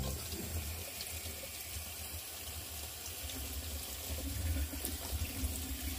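Tap water running steadily into a stainless steel sink, splashing over a whole bonito as it is rinsed by hand.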